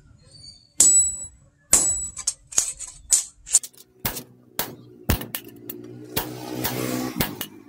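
Sledgehammer blows on a steel punch held in tongs against a knife blade, a string of sharp metallic clangs with a high ring, about two a second. Background music comes in about halfway through.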